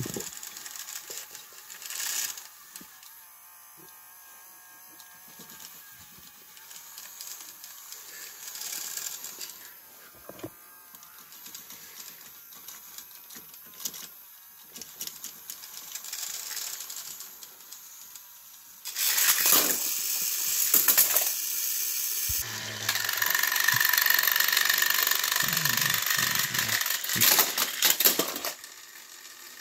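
Battery-powered toy train motors whirring and gears rattling as two motorised toy engines push against each other on plastic track. About two-thirds of the way in, the sound turns much louder, with clattering and a higher, steady motor whine.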